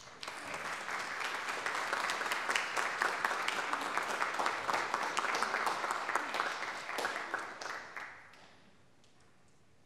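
Church congregation applauding, many hands clapping for about eight seconds, then dying away.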